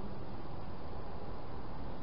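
Steady hiss with a low rumble underneath: the recording's background noise, with no distinct sounds standing out.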